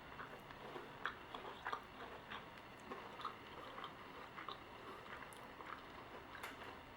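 A person chewing a crunchy piece of batter-fried cauliflower, with soft, irregular crunches, a little louder about a second in and again shortly after.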